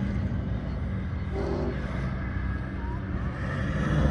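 Off-road racing car engine running, a low steady drone.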